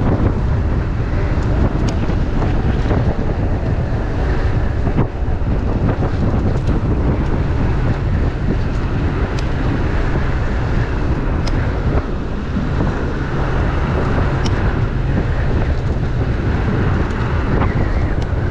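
Steady wind noise buffeting the microphone of a body-worn camera on a rider moving at cruising speed on an electric moped, heavy in the low end.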